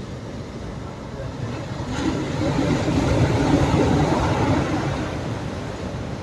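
Sea waves breaking on a beach: the rush of surf swells about two seconds in, is loudest around three to four seconds, then fades back.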